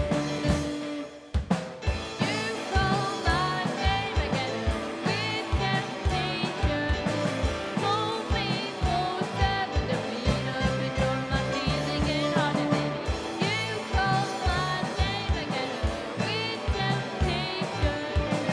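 Rock band playing live: drum kit, electric guitars and bass guitar at a steady beat, with a short break about a second in before the full band comes back in.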